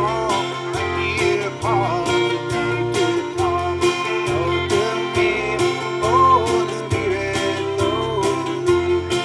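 A live gospel song: a man singing while strumming an acoustic-electric guitar, over a bass line and a steady beat.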